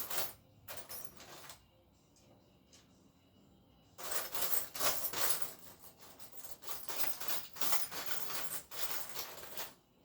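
Workshop handling noises: bursts of rustling with light metallic clinks from small parts being handled, broken by a quieter spell of faint ticks.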